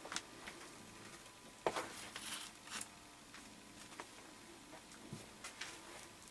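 Faint scattered taps and rustling, with a short cluster of louder knocks and scuffling about two seconds in, as kittens move about on the floor among shoes.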